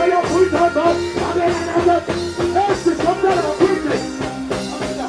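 Live reggae music with a steady beat and a singing voice over it.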